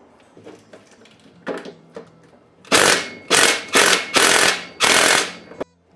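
Cordless DeWalt impact driver hammering in five short trigger bursts on the nut at the rod end of a power steering cylinder, starting a little under halfway in. The nut is backed by a locking nut, so both nuts are being driven at once.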